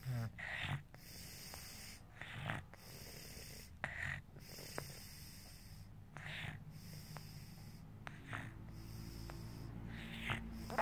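Snoring in sleep during an illness: a rasping, snorting breath comes about every two seconds, six or so times.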